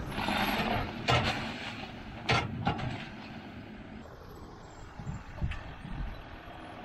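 Tractor loader running, with a noisy clatter at the start and two sharp knocks about one and two seconds in as used tires drop from the grapple onto the tarped silage pile; a few dull low thuds near the end.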